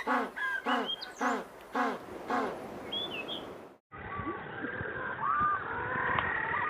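Penguin calling in a series of about six short, pitched calls at roughly two a second. About four seconds in, the sound cuts to a duller recording with scattered chirping calls over a steady hiss.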